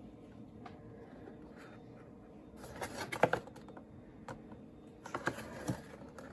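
Keys clicking on a Redragon Daksa K576W-R mechanical keyboard: a quick flurry of key presses about midway, a single press, then another short flurry near the end.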